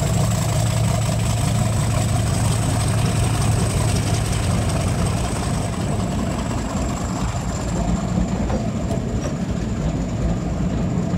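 Class 50 diesel locomotive's English Electric 16-cylinder engine running with a steady low drone and a thin high whine above it as it draws its coaches away, easing slightly in the second half as the locomotive moves off.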